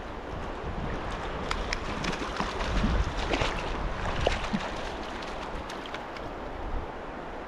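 Stream water rushing steadily, with a run of sharp splashes and slaps of water from about a second and a half in to about five seconds.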